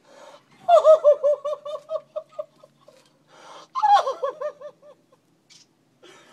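A woman's high-pitched, emotional laughing-crying in two fits of quick pulsing cries, the first about a second in and the second about four seconds in, with breathy gasps between.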